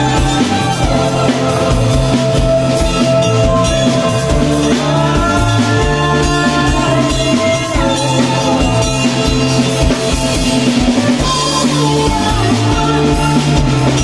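Rock band playing live, the drum kit keeping a steady beat under held guitar notes.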